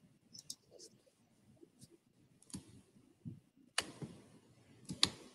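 Faint computer mouse clicks, scattered and irregular, as a game piece is picked up and moved on a virtual board. The two loudest clicks come near the end, with a soft hiss between them.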